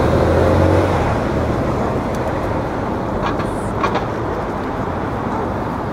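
Diesel engines of the Windermere lake cruiser Teal running: a steady low engine hum that drops back about a second in, leaving a broad, even rumble.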